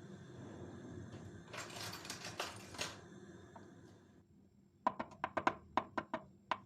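Kitchen food-preparation handling sounds: a brief rustling scrape, then a run of about eight quick, sharp knocks over a second and a half.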